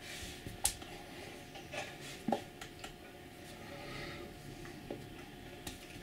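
Faint rubbing and tapping from a person signing: hands touching and clothing moving, with two sharp clicks, the first about half a second in and the second a little past two seconds, over quiet room tone with a steady low hum.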